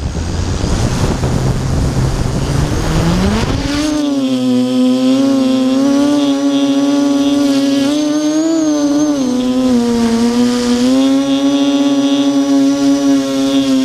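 Electric motors and propellers of an Armattan Tilt FPV quadcopter spinning up with a rising whine, lifting off about four seconds in. It then settles into a steady buzzing whine that rises and falls in pitch with the throttle as it climbs.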